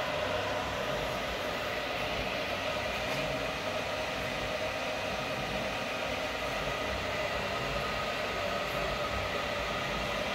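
PM-940 CNC mill running steadily: a continuous mechanical hum with several steady whining tones over it.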